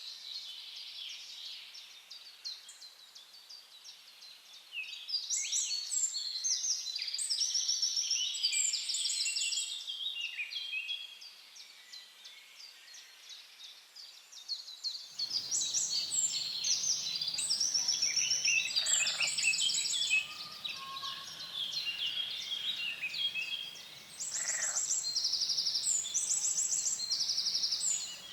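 Several songbirds singing and chirping over one another, with repeated fast trills and short call notes. About halfway through, the background changes suddenly and a low, steady hiss joins the birdsong.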